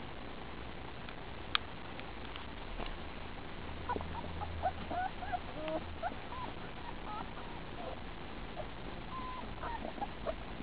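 Four-week-old German Shepherd puppies whimpering in short, high, wavering squeaks, many in a row from about four seconds in. A single sharp click comes shortly before.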